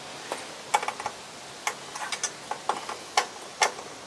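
About a dozen sharp, uneven clicks from the Suzuki GN250's switches and electrics being worked just after its new ignition switch is turned on.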